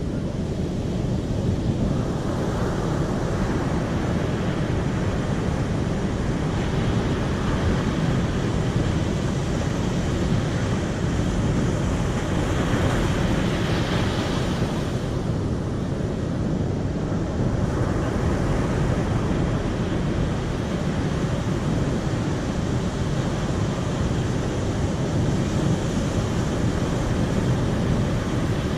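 Steady rushing of water. The rush brightens and swells briefly around the middle, then thins for a moment before settling back.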